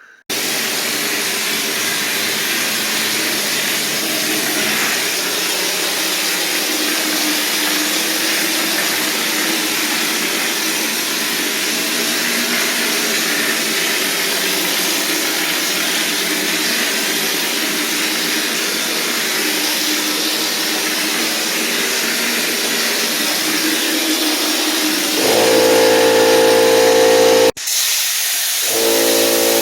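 Drywall texture hopper gun spraying texture onto a ceiling: a steady hiss of compressed air and spray. Near the end a low steady machine hum joins in and briefly cuts out.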